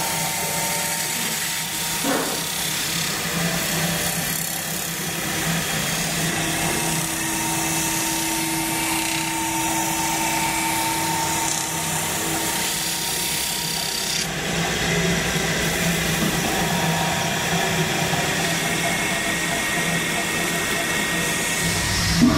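Belt-driven lathe spinning a metal cookpot while a hand-held tool is pressed against it: a steady machine hum under a rubbing, scraping hiss, with a whine that shifts in pitch as the tool works the metal.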